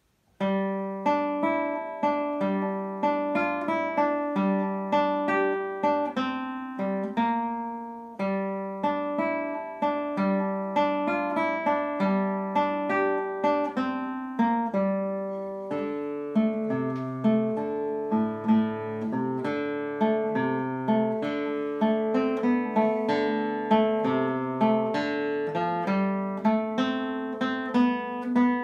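A 1998 George Lowden acoustic guitar played solo, fingerpicked single notes over a bass line with each note ringing on. It starts about half a second in, and the bass moves lower about halfway through.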